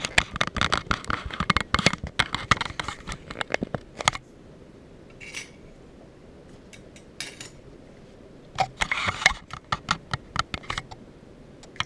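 Metallic clicking and clinking as an opened American 1105 padlock and lock-picking tools are handled. The clicks come in two busy spells, one at the start and one a little past the middle, with a few single clicks between.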